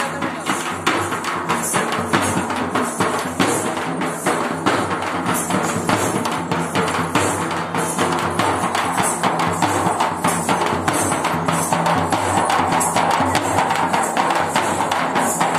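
Dappu frame drum beaten in a fast, steady rhythm, with a steady pitched sound underneath that grows stronger in the last few seconds.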